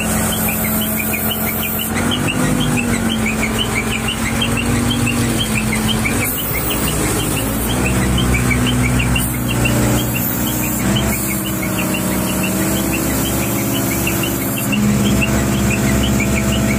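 Diesel engine of a hydraulic mobile crane running under load, heard from inside the cab, its pitch stepping up and down several times as the crane works. Quick high chirps repeat a few times a second throughout.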